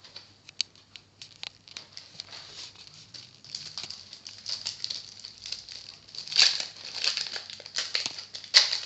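Wrapper of an amiibo card pack crinkling and crackling as it is worked open by hand, a hard packet to open. Sparse crackles at first, then thicker and louder from about three and a half seconds in.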